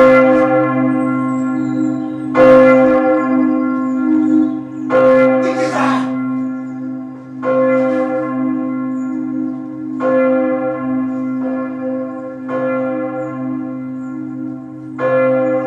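A deep bell tolling slowly: seven strokes about two and a half seconds apart, each ringing on into the next over a steady low hum.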